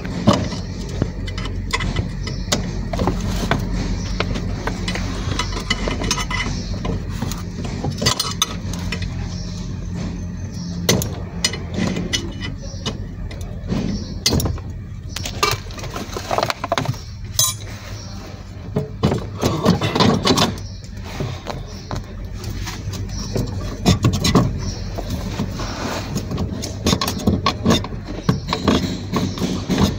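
Irregular metallic clicks, clinks and knocks of a ratchet wrench and the steel clutch pedal assembly being worked loose from its bracket under an Isuzu D-Max dashboard.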